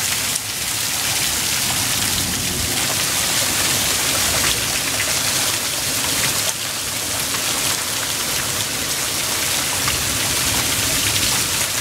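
Heavy hail pelting down on a patio and yard in a dense, steady clatter, with scattered sharp clicks of individual stones striking.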